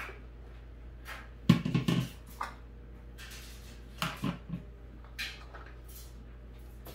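Chopped green chilies tipped from a plastic colander into a blender jar, the colander knocking against the jar: a sharp knock about one and a half seconds in with a short clatter after it, then a rustle and a few lighter knocks.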